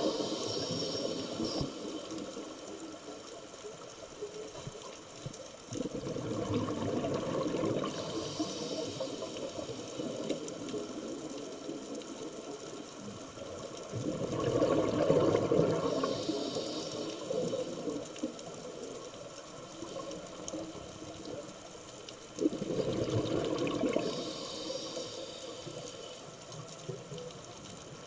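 Scuba diver breathing through a regulator underwater: a rush of exhaled bubbles about every eight seconds, each lasting two to three seconds, with a brief, higher hiss after each.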